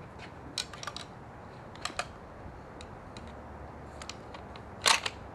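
Metallic clicks and clacks of a bolt-action .243 rifle being handled and loaded, a few scattered clicks and then the loudest clacks near the end, leaving the rifle ready to shoot.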